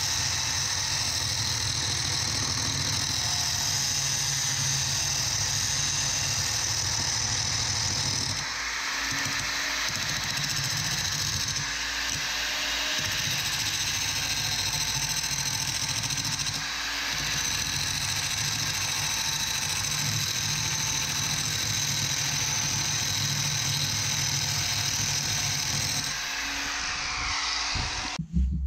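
Handheld angle grinder running steadily and grinding a steel piece held in a vise, its note shifting a few times as the pressure on the disc changes, then switched off near the end.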